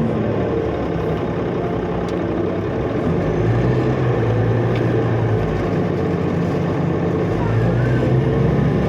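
Cummins ISL inline-six diesel of a 2005 New Flyer D40LF transit bus running under way, heard with road noise. The steady low drone shifts pitch about a third of the way in and again near the end.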